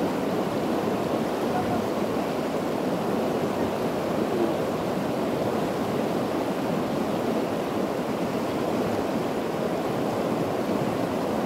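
Steady rush of river water flowing fast over a shallow stretch, an even, unbroken noise.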